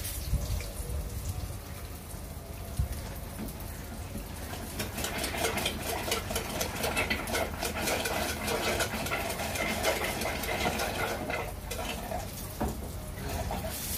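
Eggplant omelette frying in hot oil in a pan, sizzling and crackling, the crackle growing denser about five seconds in.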